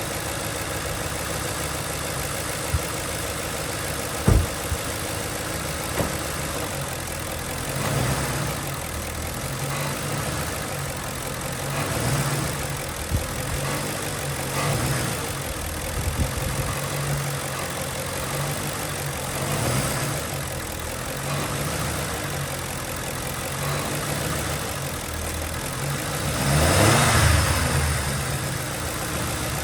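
Ford Crown Victoria's 4.6-litre V8 running, swelling in brief rises every few seconds. A few sharp clicks sound in the first several seconds, and a louder swell comes near the end.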